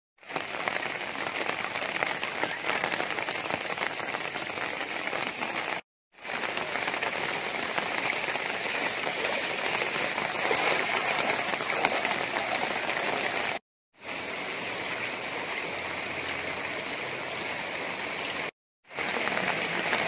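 Steady rain falling, an even hiss of water, broken three times by a brief gap of silence.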